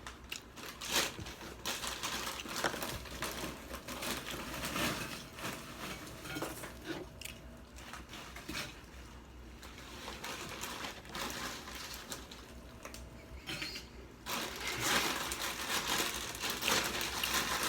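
Potato chips being crunched and chewed close to the microphone, a run of short crackly crunches. The crunching grows denser and louder near the end.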